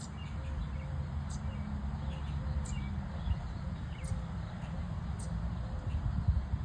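A small bird chirping: short, high-pitched chirps repeated about every second and a half, over a low rumble.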